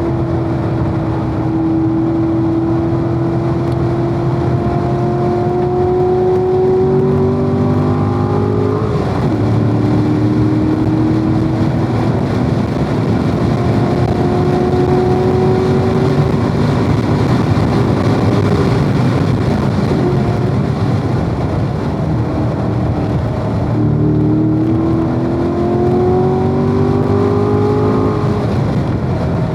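Corvette's V8 engine at racing speed on track, pulling hard with the pitch climbing through each gear. The pitch drops suddenly at a gear change about a third of the way in, climbs again, eases back about three quarters of the way through and climbs once more near the end.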